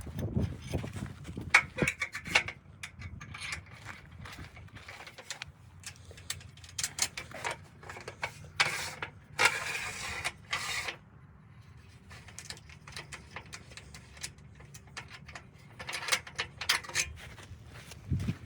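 Irregular metal clicks, clanks and knocks, as of dock frame parts being handled and fastened together, with a quieter stretch past the middle before a few more clicks near the end.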